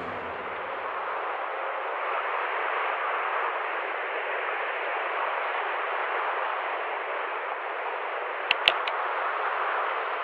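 A thin, even hiss of static, with a few quick glitch clicks about eight and a half seconds in.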